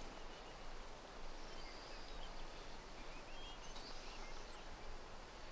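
Quiet open-air ambience: a steady low hiss with a few faint, short bird chirps in the middle.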